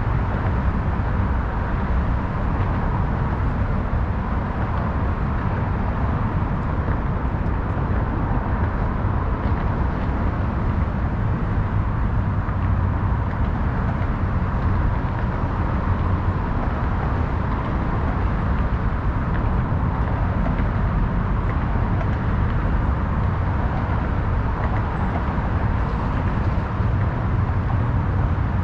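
Steady city ambience dominated by a continuous low rumble of road traffic, with a faint steady hum above it.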